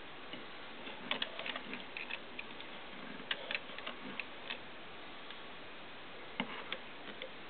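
Light clicks and ticks of handling, irregular and in a few short clusters, over a steady hiss.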